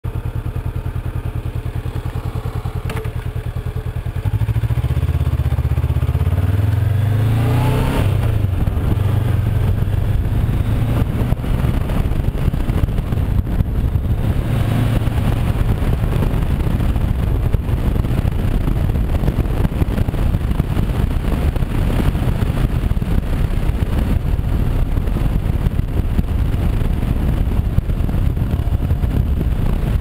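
Honda CB500X motorcycle's parallel-twin engine idling, then opened up about four seconds in as the bike pulls away, its pitch rising over the next few seconds. It then runs steadily under way beneath a rush of wind and road noise.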